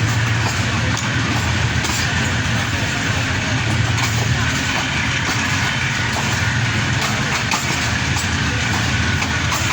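Steady running noise of a vehicle in motion, with an even low hum under a wide hiss.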